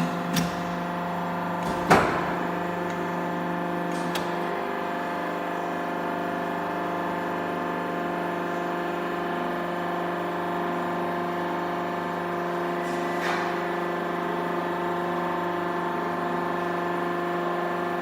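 A CNC hydraulic press brake running with a steady mechanical hum. There is one sharp clunk about two seconds in and a lighter click a couple of seconds later.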